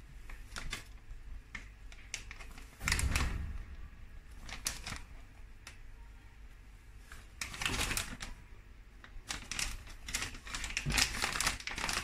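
Clear plastic bag crinkling and rustling as it is handled, in irregular bursts of small crackles; the loudest come about three seconds in, around eight seconds, and near the end.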